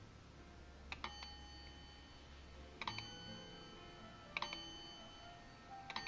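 Imhof brass mantel clock striking the hour: four sharp strikes about one and a half to two seconds apart, each leaving a bright ringing tone that hangs on, with faint ticking underneath.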